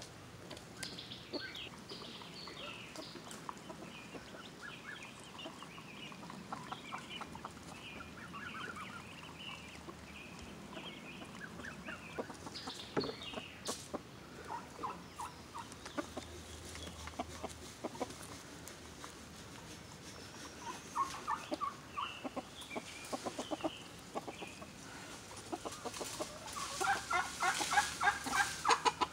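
Domestic hens clucking, with many short calls overlapping. Near the end they become a louder run of rapid, repeated clucks.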